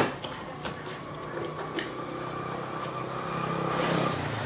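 Cardboard packaging being handled: a few light clicks and scrapes in the first two seconds as the router box is opened and its moulded pulp tray is slid out. Under them runs a steady motor-like hum that grows louder toward the end.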